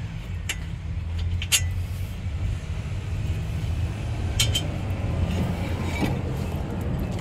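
A few sharp metallic clicks and clinks as the steel brake caliper bracket is handled and lifted off the front rotor, over a steady low background rumble.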